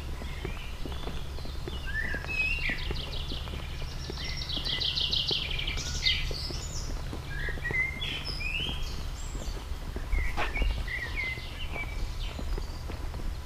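Songbirds singing: fast trills and short chirps from several birds, over a steady low rumble. Faint footsteps on a gravel path, with one sharp click about ten seconds in.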